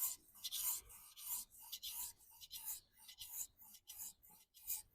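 Kitchen knife blade being stroked back and forth on a whetstone: a rapid, even series of short rasping strokes, about three a second.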